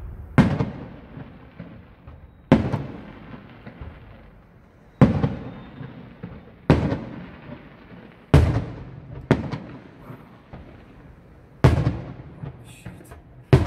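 Aerial firework shells bursting close by: about eight sharp bangs, each a second or two apart and each followed by a fading echo, with a patter of small crackles near the end.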